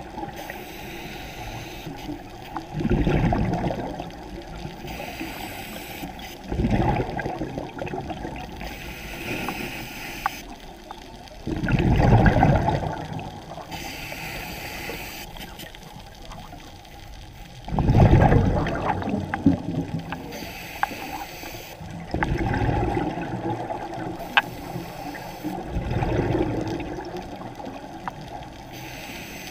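Scuba diver breathing through a regulator underwater. Exhaled bubbles rush out six times, a few seconds apart, with a softer hiss in between.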